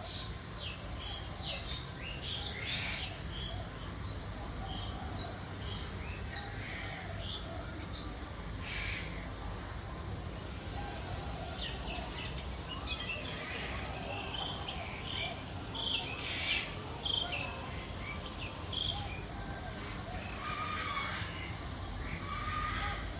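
Birds calling: many short chirps and calls scattered throughout, over a steady low rumble of background noise.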